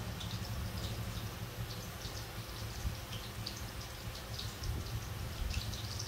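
Quiet background: a steady low hum with scattered, irregular faint high-pitched ticks.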